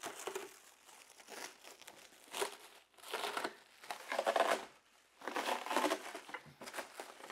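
Thin plastic protective film being peeled off an RC car's body shell, crinkling and tearing in about four separate bursts.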